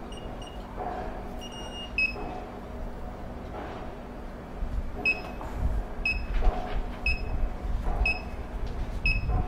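Short, high electronic beeps from a wireless alarm keypad and panel being operated: a few key-press beeps in the first couple of seconds, then a regular beep about once a second from about five seconds in.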